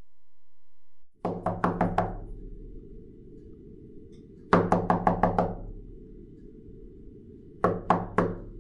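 Three bouts of rapid, heavy knocking, four to seven blows each, starting about a second in, again around the middle and near the end, over a steady low drone.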